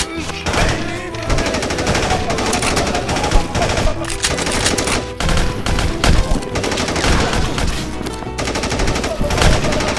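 Rapid automatic gunfire, shot after shot in dense bursts, laid over background music.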